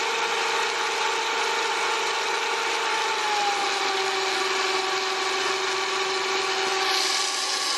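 A 3D-printed Pelton wheel, spun by a water jet from a hose and driving a DC motor used as a generator, gives a steady whine over the hiss of spraying water. About three seconds in, the whine drops in pitch and holds there as the electrical load is connected and slows the turbine.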